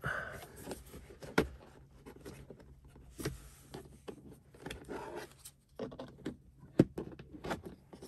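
Red plastic pry tool and fingers working at the clips of a Tesla Model 3's plastic centre-console trim panel: scattered light plastic clicks and knocks with brief scraping, the sharpest click about a second and a half in and another near the end.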